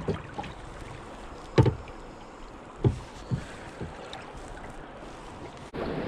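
A few sharp knocks and thumps of a landing net, rod and trout being handled in a small boat, the loudest about one and a half seconds in, over a steady hiss of wind and water that grows louder near the end.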